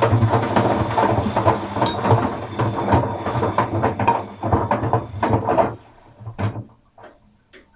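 Atlant washing machine drum turning through a wash stroke with a steady motor hum, the paint rollers and brushes inside clattering and knocking against the drum; the drum stops about six seconds in, leaving a few last knocks.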